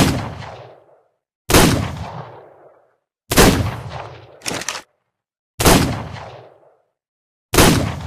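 Revolver gunshot sound effect: five single shots, roughly two seconds apart, each a sharp crack followed by a ringing echo tail. A short mechanical clatter, like the hammer being cocked, falls between the third and fourth shots.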